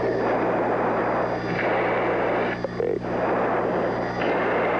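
Loud rushing noise on the F-14 Tomcat's cockpit intercom and radio recording, cutting in and out abruptly several times, over a steady low electrical hum.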